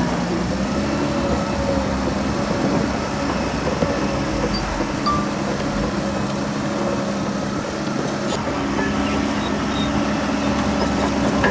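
Heavy diesel engine of earthmoving machinery running steadily, its pitch holding constant.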